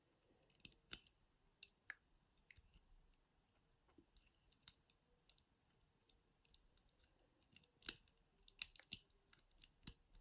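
Faint, scattered metallic clicks of a wire pick and tension tool working the levers inside a Squire 660 lever padlock, with a quicker run of louder clicks near the end.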